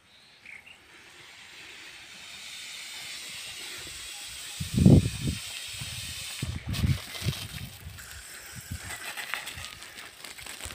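Irrigation sprinklers hissing as the water comes on, the hiss building over the first few seconds and then holding steady. A loud low rumble comes about five seconds in, with smaller ones around seven seconds.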